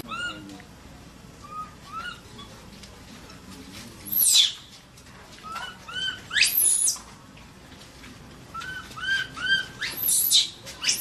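Infant macaque distress calling for its mother: runs of three or four short, high, arched squeaks, and three loud shrill screams that sweep sharply up and down, about four, six and a half, and ten seconds in.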